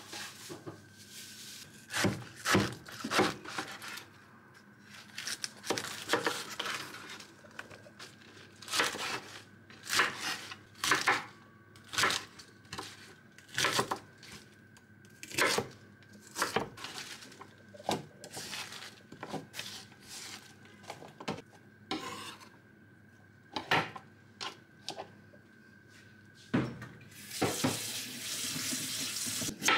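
Kitchen clatter: dishes, pots and utensils being handled with many separate knocks, over a faint steady high hum. Near the end comes a couple of seconds of running tap water.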